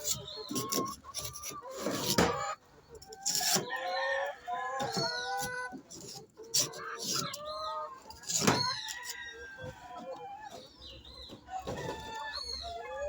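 A flock of laying hens clucking and squawking in short, overlapping calls, with a few sharp, loud knocks or flaps standing out about two, three and a half and eight and a half seconds in.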